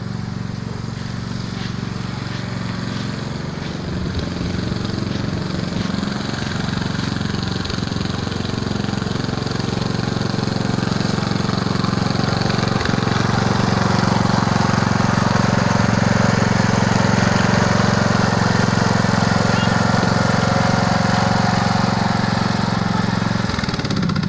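Ride-on lawn mower engine running steadily, growing louder through the first half and then holding level.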